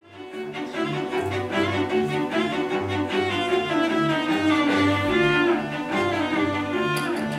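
Background music of bowed strings over a steady, rhythmic bass line.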